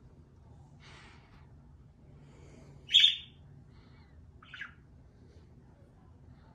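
Hunter low-profile ceiling fan running with a faint, steady low hum. Over it come two short, high chirps: a sharp, loud one about three seconds in and a smaller one a second and a half later.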